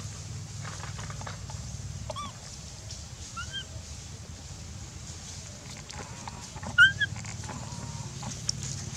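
A few short, high-pitched macaque squeaks: one about two seconds in, another about three and a half seconds in, and a loud pair near seven seconds. They sound over a steady low hum.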